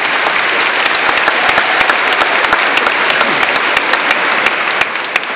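Large audience applauding, many hands clapping together, steady and then dying down toward the end.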